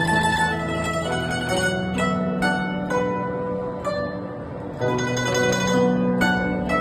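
Hand-carved, hollowed-out guzheng played solo: a melodic run of plucked notes, each left to ring. It thins out and softens around the middle, then comes back louder with a new group of notes about five seconds in.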